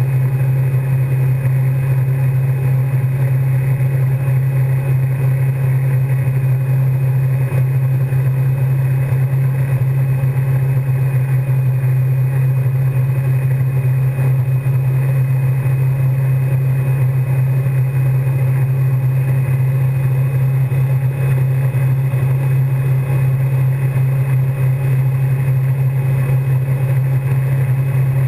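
Wakesurf boat's engine running steadily under way, a constant low drone, with the rush of churning wake water.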